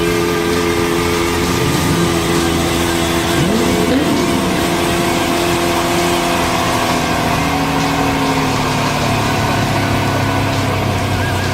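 Lamborghini supercar engine running steadily, with a couple of short rises in pitch in the first few seconds.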